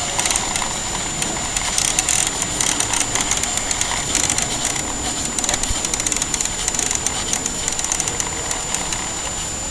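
M16 half-track running: a steady noisy drone with a dense, continuous clatter of clicks and rattles, over a thin steady high whine.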